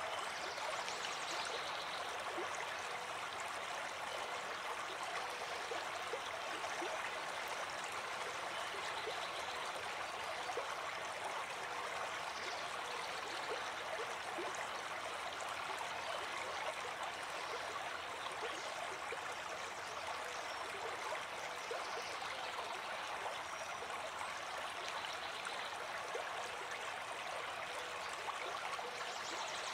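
Shallow brook flowing over a gravel riffle: a steady, even rush of running water.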